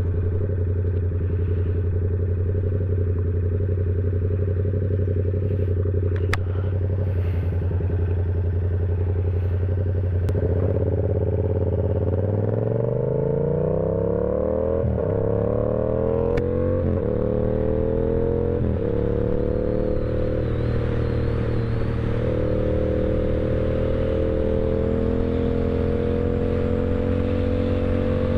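Yamaha R7's parallel-twin engine running at a steady low pitch, then pulling hard and rising in pitch through several quick upshifts before settling into a steady cruise.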